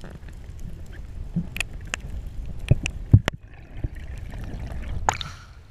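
Underwater sound through an action-camera housing: a steady low rumble of moving water with sharp clicks and knocks every second or so, then a short rushing splash a little after five seconds in as the camera nears the surface.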